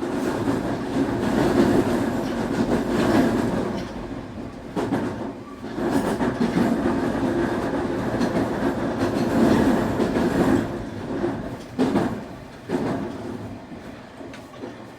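Nankai 8300 series electric train running on the line, heard from the front car: steady rumble of wheels on rail with clickety-clack over rail joints. The level swells and dips as it goes.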